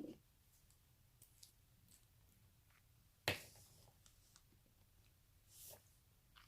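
Near silence with a few faint clicks of small objects being handled, and one sharper click about three seconds in.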